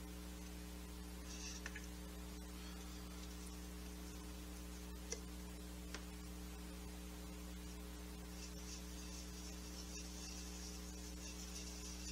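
Steady low electrical mains hum. Over it, faint scratchy swishing of a paintbrush scrubbing watercolour paint in a palette well, clearest in the last few seconds, and two small ticks near the middle.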